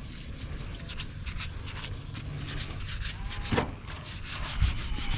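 A sponge scrubbing back and forth in quick repeated strokes on a truck's body panel, rubbing off old dried adhesive left by removed lettering. A steady low rumble runs underneath, and one stroke about three and a half seconds in is sharper and louder than the rest.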